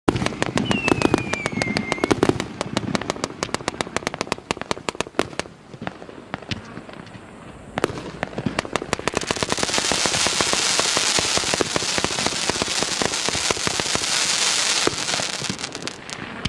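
Multi-calibre 308-shot fireworks cake (Favorit FP-B331) firing in rapid succession: a dense string of sharp launch reports and bursts. There is a falling whistle about a second in, and a steady, dense high-pitched rush of effects from about nine to fifteen seconds in.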